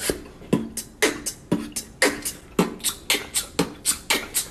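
Mouth beatboxing: a steady beat of kick and snare sounds, about two strokes a second, with short vocal sounds between them.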